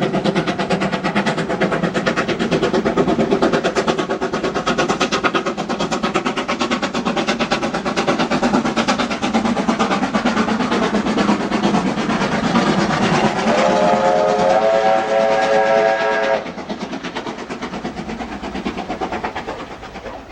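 American 2-8-0 steam locomotive working, with a rapid, even beat of exhaust chuffs. Its whistle sounds a chord for about three seconds past the middle, and the exhaust then drops to a quieter beat.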